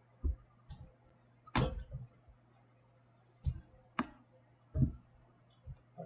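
Computer mouse clicks: about eight short, irregular clicks, the loudest about a second and a half in, over a faint steady low hum.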